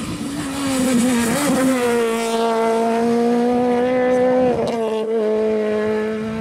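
Peugeot 208 rally car engine held at high revs as the car passes and drives away on a wet road. The pitch wavers about a second in, then holds steady and high, with a brief dip about four and a half seconds in.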